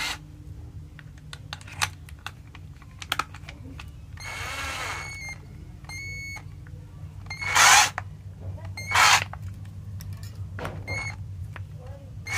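12-volt cordless drill run in short bursts of about a second, four times, its motor whirring up and winding down, with a few sharp clicks of handling between the runs.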